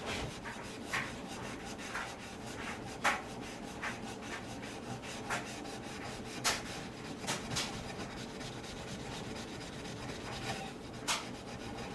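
Brillo steel-wool soap pad scrubbing hard on the glass of a toaster oven door: a steady rubbing rasp with occasional sharper scrapes.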